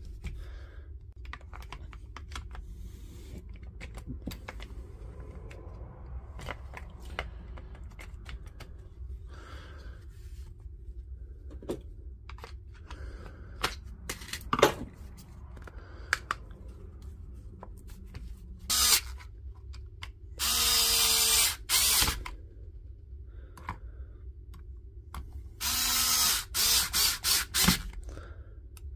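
Light clicks and taps of parts being handled as an impact driver is put back together, then a small power-tool motor whirring in short bursts: one brief burst, a longer run of about a second and a half, and a quick string of trigger blips near the end.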